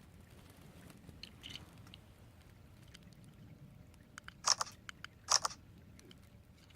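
Bendable legs of a flexible phone tripod being handled and bent, giving a few faint clicks about a second and a half in and two short crunching clicks near the end.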